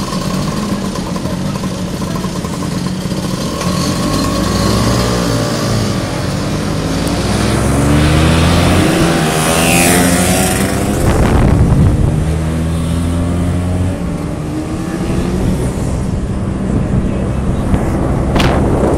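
Vespa scooter engine running under way, its pitch rising and falling as it pulls off and picks up speed.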